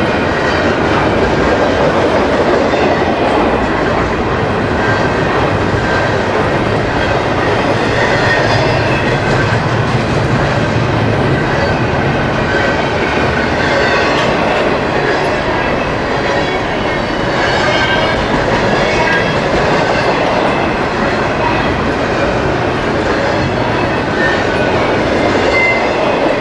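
CSX double-stack intermodal freight train passing close by: the steady rolling noise of its container well cars' steel wheels on the rails, with faint high tones now and then.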